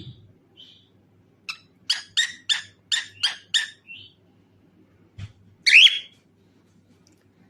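Cockatiel calling: a soft note, then a quick run of about seven short chirps, then one loud call, the loudest sound, about two seconds later.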